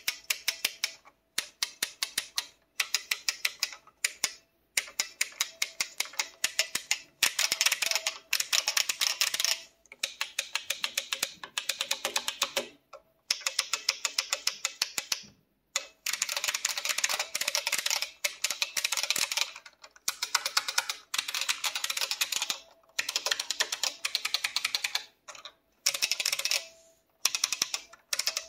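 Unrestored IBM Model F XT buckling-spring keyboard being typed on, sharp rapid key clicks in runs of a second or two with brief pauses between them, and a steady ringing note beneath the clicks.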